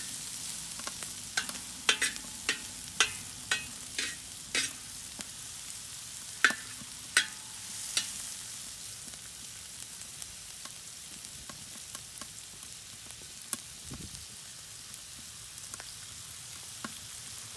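Chopped onions sizzling steadily as they fry in bacon fat in a very hot pan on a rocket stove. For the first half, a utensil stirring them clicks and taps sharply against the pan, one or two knocks a second.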